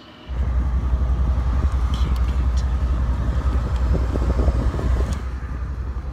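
A steady low rumble, with a few light metallic clicks as a tool and hands work the terminal clamp on a truck battery being taken out.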